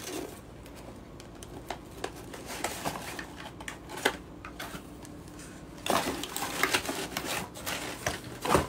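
Cardboard boxes and shredded crinkle-paper filler being handled: scattered light taps and clicks of cardboard, turning into denser rustling and crinkling about six seconds in, with a sharper knock near the end.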